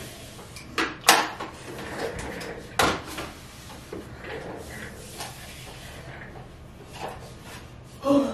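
Several sharp knocks and clunks, the loudest about a second in and about three seconds in, with softer shuffling and handling noise between them. The sound is of someone moving about at a desk and handling things on it.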